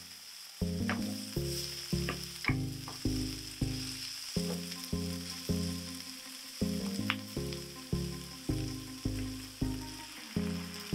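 Background music of evenly paced notes, about two a second, over a steady sizzle of spring onion and cherry tomatoes frying in olive oil in a pan, with a few sharp clicks of a wooden spatula stirring.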